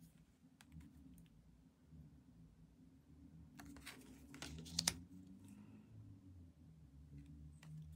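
Tarot cards being handled on a wooden tabletop: soft taps, flicks and slides as cards are picked up, flipped and set down, with a quick run of sharper card clicks and slaps about four to five seconds in. A faint low hum sits underneath.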